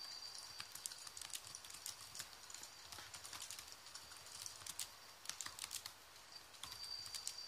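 Faint irregular clicks and taps, several a second, over a faint steady high-pitched whine.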